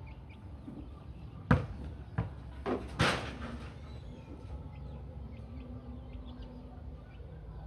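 A volleyball being hit by hand: four sharp smacks in quick succession between about one and a half and three seconds in, the last with a brief ring after it.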